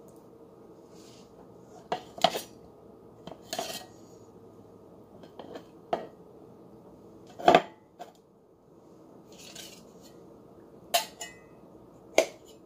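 A metal utensil clinking and knocking against an open tin can of jackfruit while pieces are taken out: about seven sharp, irregular clicks, the loudest a little past halfway.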